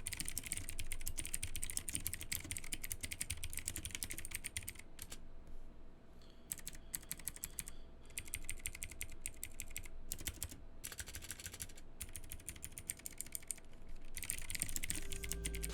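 Typing on a Drevo Calibur X 65% mechanical keyboard with Outemu Blue clicky switches: a fast run of keystrokes, each with a sharp click on actuation. The click is lower in pitch than a Cherry MX Blue's. There is a short lull about five seconds in.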